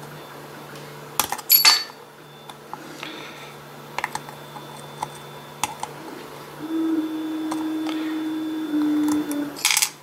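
Circlip pliers working the retaining C-clip off the back of an Abus C83 brass lock cylinder: small metallic clicks and scrapes. There are sharp ringing metal snaps about one and a half seconds in and again just before the end. A steady low hum runs for about three seconds in the second half.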